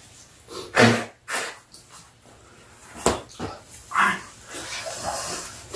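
People blowing their noses into paper tissues: several short, snorting blasts of air through the nose. Their noses are running from the spicy soup.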